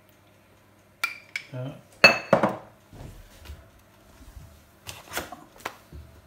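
Clinks and knocks of a metal spoon and a glass honey jar being handled and set down on a stone worktop: two sharp ringing clinks about a second in, two louder knocks around two seconds in, then a few lighter taps near the end.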